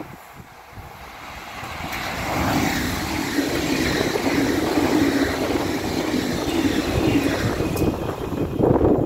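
Red regional passenger train passing close by at speed: the steady rumble and rush of wheels on rails builds about two seconds in and stays loud to a peak near the end.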